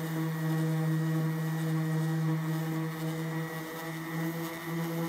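Electric random orbital sander running on a fiberglass boat hull: a steady hum with a slight waver in pitch and level.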